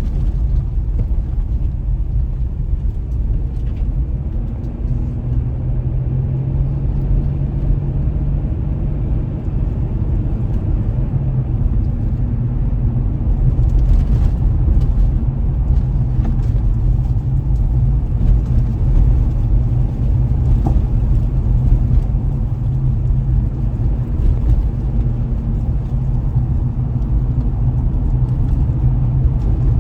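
Car driving along a road: a steady low rumble of engine and tyres on the road surface.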